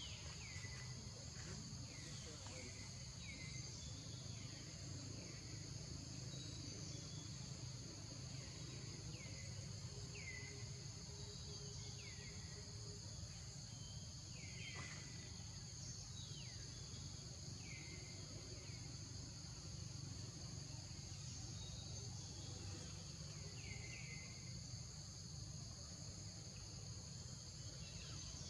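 Forest ambience: a steady high insect drone, with a bird repeating a short downward-sliding call every second or so.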